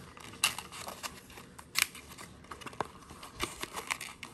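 White pre-scored paperboard box being folded and pressed together by hand: scattered scraping, rustling and clicks as its tabs are pushed in to lock, with the sharpest click a little under two seconds in.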